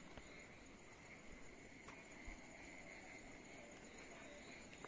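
Faint, steady chirring of night insects such as crickets, with a few soft clicks.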